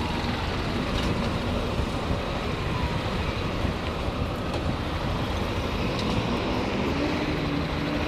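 Yamaha XTZ 150 Crosser's single-cylinder engine running at low speed in slow city traffic, under a steady rumble of road and traffic noise.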